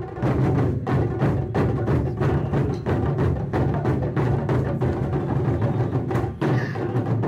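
Japanese taiko drum ensemble playing: many drums struck together in a fast, dense, driving rhythm with deep booming strokes. The drumming thins briefly about six seconds in, then picks up again.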